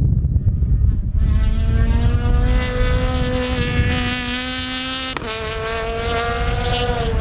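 A rally car's engine running hard at high revs on the circuit, its pitch steady and slowly climbing, with a sudden break and a small dip in pitch about five seconds in. Strong wind buffets the microphone.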